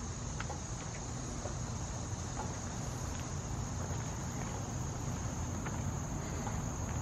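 Crickets trilling steadily in an evening chorus, over a low, steady rumble.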